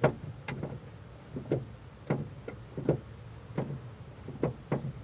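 Second-generation DSM passenger door handle being worked over and over, its latch and linkage rods giving a string of sharp plastic-and-metal clicks, often in quick pairs, about every half second to a second. The newly installed handle is engaging the door latch.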